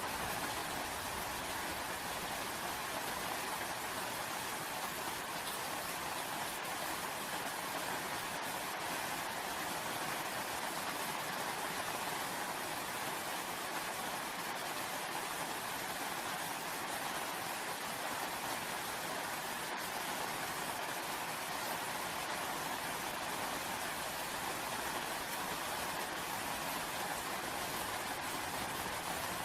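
Steady rainfall: an even, unbroken hiss of rain, with a few faint separate drop ticks.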